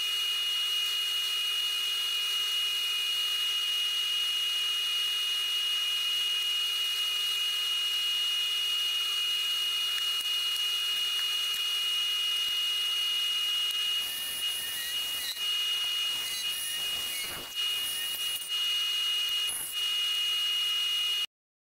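Wood lathe running with a steady high-pitched electric whine. About two-thirds of the way through the sound turns uneven, dipping and breaking with irregular knocks, then it cuts off suddenly near the end.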